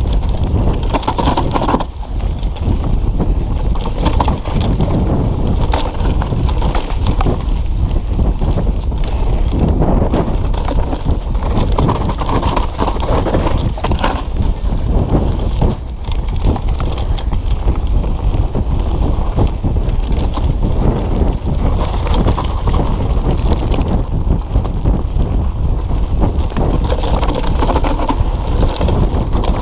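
Mountain bike descending a rough dirt trail at speed: steady wind rumble on the microphone under a continual rattle and clatter of knocks as the bike chatters over bumps and roots.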